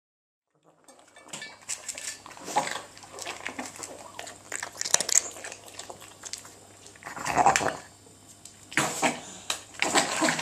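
A flat-faced, extremely brachycephalic dog eating from a stainless-steel bowl, starting about a second in: irregular snuffling breaths and mouth noises, with the metal bowl clinking. The sounds reflect the short muzzle's difficulty picking up and chewing food.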